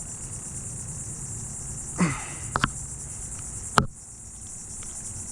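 Steady, high-pitched chorus of insects. About two seconds in there is a brief vocal sound, followed by a few sharp clicks; the loudest click comes near the four-second mark.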